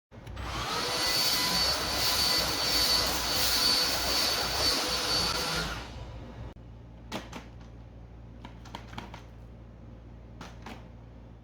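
Philips SpeedPro cordless stick vacuum running with a steady whine and rush of air for about six seconds, then cutting out. A few sharp clicks follow over a faint low hum.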